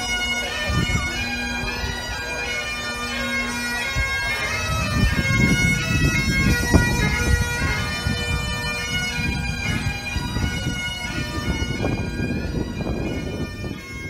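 Highland bagpipes playing a tune over their steady drone, with a low rumble underneath from about a third of the way in. The sound fades out near the end.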